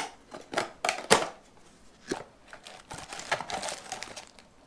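A reel's packaging being opened by hand: a few sharp clicks and taps of cardboard in the first two seconds, then light crinkling of the clear plastic insert as the reel is lifted out.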